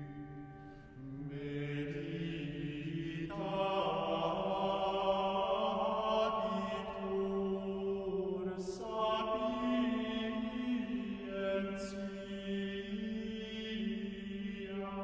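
Gregorian chant of the Introit: voices sing a single unaccompanied melody line in held notes, moving up and down by step.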